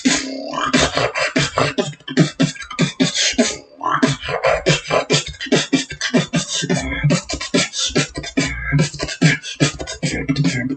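Human beatboxing: a fast, dense run of mouth-made drum hits, with a deep held bass note for a few seconds in the middle.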